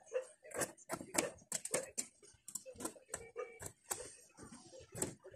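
Scissors snipping through white upholstery fabric: a quick, irregular series of sharp cutting clicks, about three or four a second.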